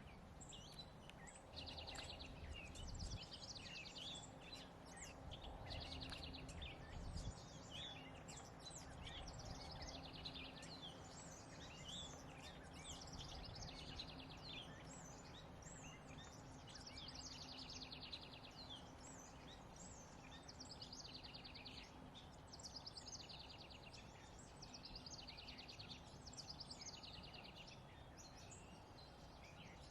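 Faint backyard birdsong: several small birds chirping and giving quick repeated trills, over a low steady background hum.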